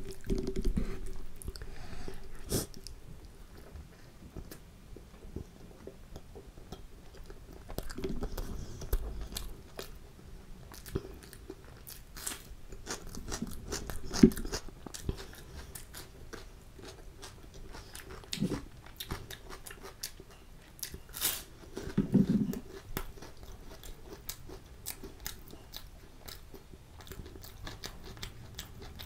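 Close-miked chewing and crunching as a person eats chickpea curry, kulcha, fried sabudana papad and raw onion and cucumber by hand, with many small mouth clicks. The loudest crunchy bites come about halfway and about three-quarters through.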